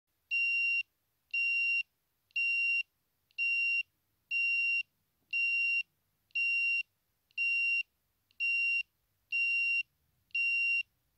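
Truck reversing alarm beeping steadily, about one high-pitched beep a second, eleven beeps in all.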